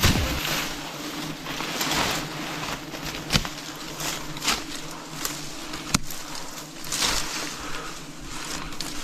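A swarm of wild bees buzzing, in a steady drone that swells and fades. A few sharp knocks cut through it, the loudest about a third of the way in and another about two thirds in.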